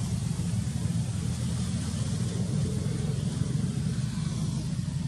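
Steady low rumble with a faint hiss above it, unchanging throughout.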